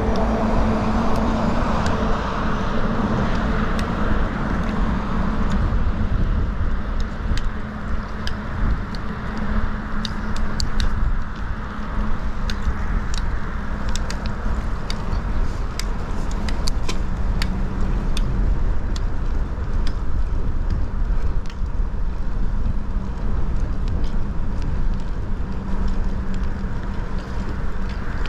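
Road traffic heard from a moving bicycle: cars passing over a steady low rumble, with a scatter of sharp clicks and rattles through the middle.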